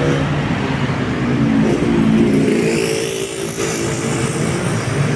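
A large bus driving past close by, its engine accelerating, with the engine pitch rising about two seconds in.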